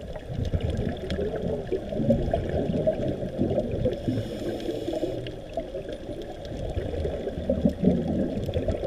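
Scuba exhaust bubbles gurgling and churning without a break, muffled through an underwater camera housing.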